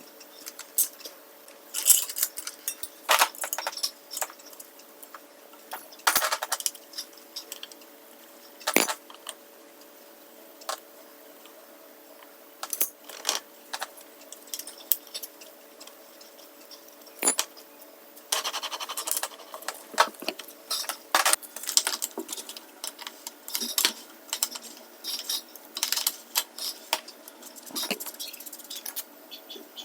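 Metal parts of a Shimano SM-BB51 bottom bracket being taken apart by hand: scattered sharp clicks, clinks and light rattles of the cups and small parts.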